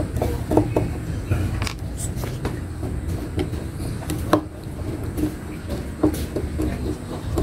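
Scattered light clicks and taps from the metal parts of a sewing machine being handled at the needle and thread, with a sharper click about four seconds in, over a steady low rumble.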